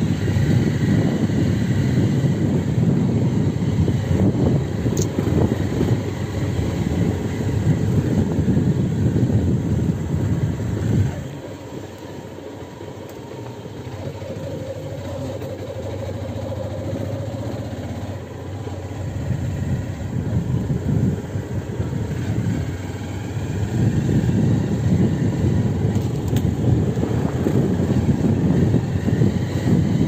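Vehicle engine and wind rumble while driving along a rough dirt road, easing off and going quieter for several seconds around the middle before picking up again.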